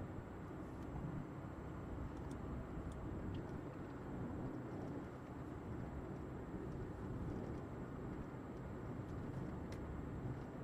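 Cabin sound of a Fiat Punto II with its 1.2-litre 60 hp four-cylinder petrol engine, driving at a steady pace: a low engine hum under even tyre and road rumble.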